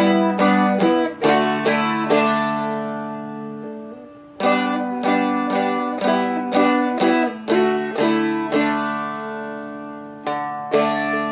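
Seagull Merlin being played: quick runs of picked melody notes and strums, with two chords about two seconds in and about eight and a half seconds in that are left to ring out for a couple of seconds before the picking starts again.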